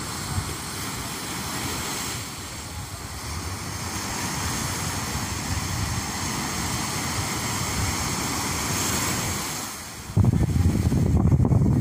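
Ocean surf washing steadily onto the rocks and sand. About ten seconds in, a loud, rough low rumble of wind on the microphone comes in suddenly.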